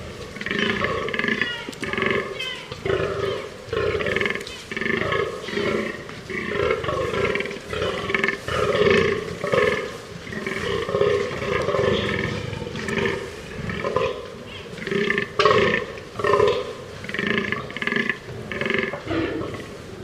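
Fallow deer buck groaning: a run of short, deep, belch-like rutting groans repeated about one to two times a second.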